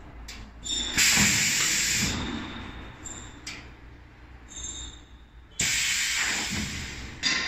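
Compressed air hissing out in sharp blasts, three times: about a second in, past the middle and near the end, each one cutting in suddenly and fading over a second or so.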